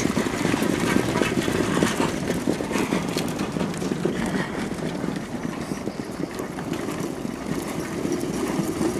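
Hooves of a coldblood trotter striking the track as it trots past pulling a sulky, heard as a run of irregular knocks over a steady noisy rumble.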